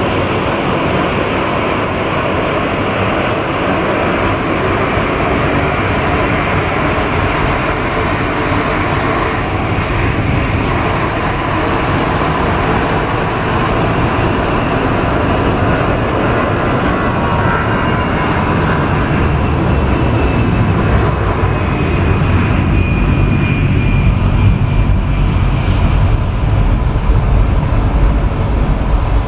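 Airbus A220 airliner's geared turbofan engines at taxi power as it rolls toward the listener: a steady jet whine and rush over a low rumble, with a high whine that slowly falls in pitch through the middle. The rumble grows louder in the last third as the aircraft comes closer.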